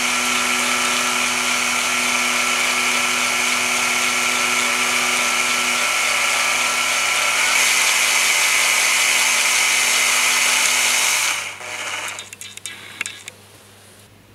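Electric drill running steadily, spinning a Land Rover 2.25-litre diesel injector needle inside its nozzle body to lap the seat with toothpaste; its tone shifts a little partway through. The drill stops about eleven seconds in, followed by faint handling clicks.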